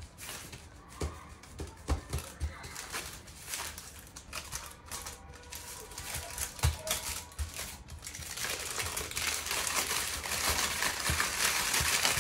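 Sheet of baking paper crinkling and rustling as it is handled and folded around a date-filled semolina cake, with scattered light taps against the counter. From about eight seconds in, the crinkling becomes denser and louder as the paper is rolled up around the cake.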